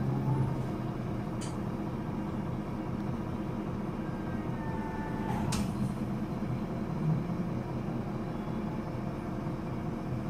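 Solaris Urbino 12 III city bus's horizontal DAF 9.2-litre turbocharged inline six-cylinder diesel idling while the bus stands still, a steady low hum with the clatter this engine has at low revs. Two sharp clicks come through, one about a second and a half in and a louder one about halfway through.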